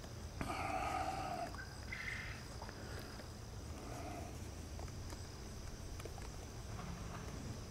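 Outdoor background with a steady high-pitched drone and a short animal call about half a second in, followed by fainter calls around two and four seconds, over a low rumble and a few faint ticks.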